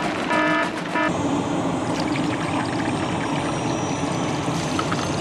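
Liquid gushing and pouring steadily, a cartoon sound effect of a flood of urine running through an airliner's lavatory waste system. In about the first second a repeating electronic alarm beeps twice.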